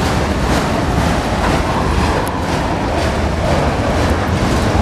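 Autorack freight cars rolling past close by: a steady rumble of steel wheels on rail with occasional clicks as the wheels cross rail joints.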